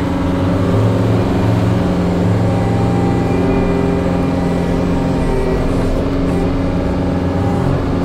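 John Deere 333G compact track loader's diesel engine running steadily while the machine works with a debris grapple.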